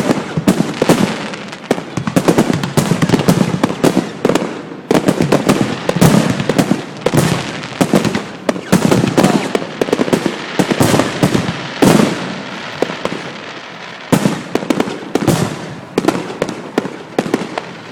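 A fireworks display going off: a rapid, irregular string of loud bangs and crackling bursts, many overlapping, with a brief lull about three-quarters of the way through.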